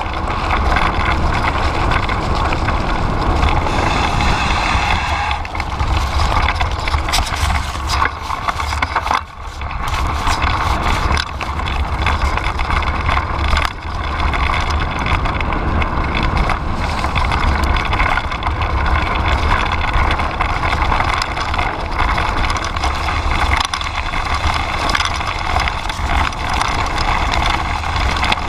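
Wind buffeting the camera's microphone over the rumble and rattle of a Kellys Splash mountain bike's tyres and frame on a fast descent down a rough dirt trail, with scattered knocks from bumps and one brief easing about nine seconds in.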